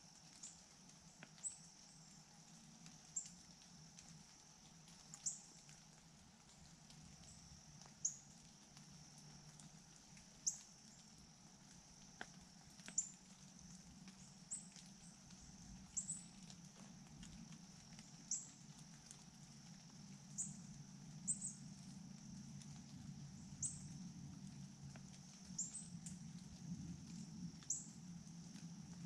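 Quiet woodland ambience: short, high-pitched chirps from a small animal repeat about every two seconds over a steady faint high whine, with a low rumble that grows a little near the end.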